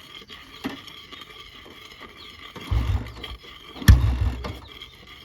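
Old motorcycle being kick-started: two hard kicks about a second apart, each a short low chug, the second opening with a sharp clack.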